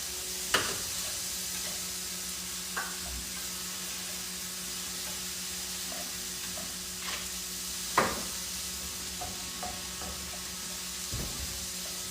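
Chicken sizzling as it fries in a pan, with a utensil clicking against the pan a few times; the loudest knock comes about eight seconds in.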